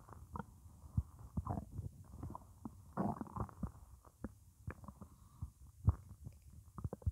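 Empty stomach gurgling from morning hunger, recorded close against the belly: a string of short irregular gurgles and pops, with a longer gurgle about three seconds in.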